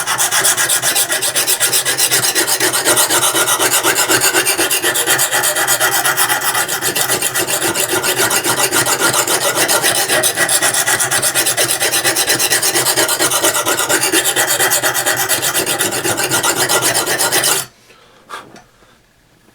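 Coarse Lansky sharpening hone rasping back and forth in quick strokes across the steel spine of a saw blade, grinding a new bevel. The scraping stops abruptly near the end.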